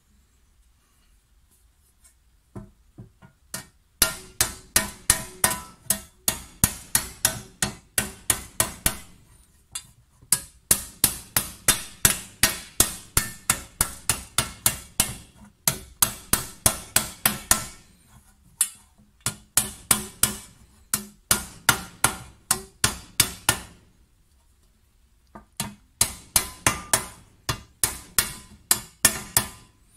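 Ball-peen hammer beating a copper tray over a wooden post to raise it: ringing metal blows, about three to four a second, in runs of a few seconds with short pauses. It starts with a few light taps, then settles into steady hard strokes.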